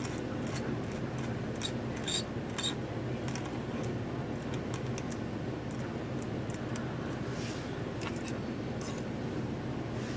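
Scattered light scratchy ticks and clicks of a metal dip-pen nib on a glass sheet and against a small enamel jar as it is dipped and drawn, over a steady low hum.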